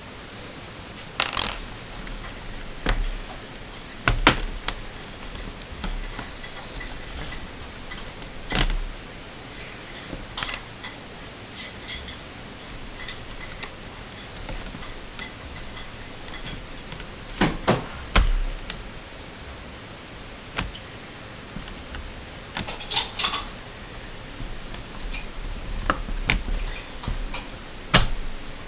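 Irregular clicks, taps and light knocks of small laptop parts and tools being handled during disassembly, a few seconds apart, some in quick clusters.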